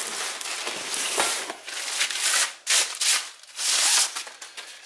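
Plastic bubble wrap and cardboard packaging rustling and crinkling in several bursts as a wrapped roll is pulled free of it, the loudest bursts from about two to four seconds in.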